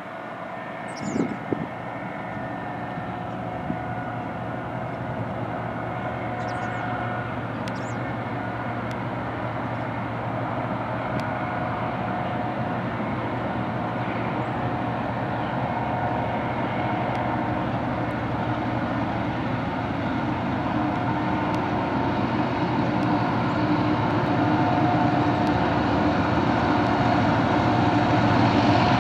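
Three Union Pacific diesel locomotives leading a freight train, their engines a steady drone with a held tone, growing gradually louder as they approach.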